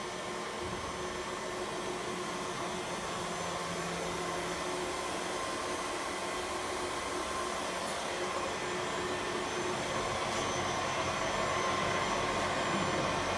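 Supermax YCM VMC65A CNC vertical machining center running: a steady mechanical whir with a few steady tones, slowly growing a little louder toward the end.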